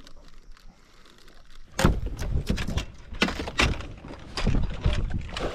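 A quick, irregular run of sharp knocks and clatters that starts about two seconds in.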